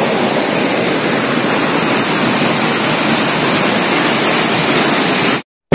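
Water rushing over a rocky cascade: a steady, even rush of white water that cuts off suddenly near the end.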